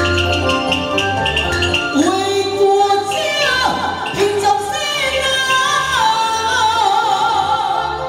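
Taiwanese opera (gezaixi) singing: a woman sings a long, gliding and wavering vocal line through a microphone over the live accompaniment band. The band plays alone with a steady percussion beat for about the first two seconds before the voice comes in.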